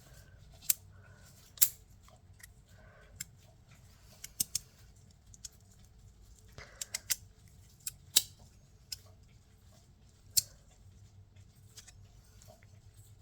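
Irregular sharp clicks of glow-in-the-dark derby fidget-slider plates, including a sandwich plate, knocking and snapping against each other as they are handled, about a dozen or more over the span.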